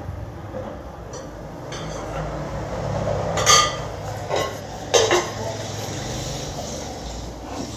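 Small metal parts clinking: two sharp, ringing clinks about a second and a half apart near the middle, with the rustle of a cloth rag being rubbed between the hands.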